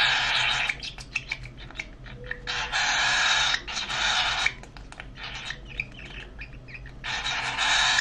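A baby cockatiel making harsh, raspy food-begging calls while being hand-fed formula, in three long bouts: at the start, a few seconds in, and near the end. Short clicks fill the quieter gaps between the bouts.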